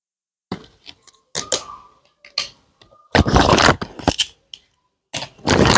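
Small plastic toy pieces and their packaging being handled: a run of sharp clicks and taps, with two longer bursts of crinkly rustling about three and five seconds in.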